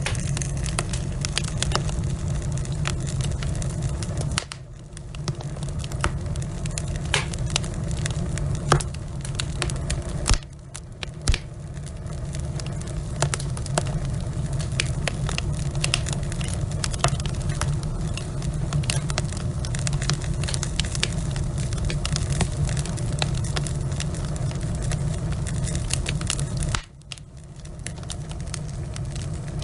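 Wood fire burning in a fireplace: burning logs crackling with irregular sharp pops over a steady low rumble of flame. The sound drops away briefly three times.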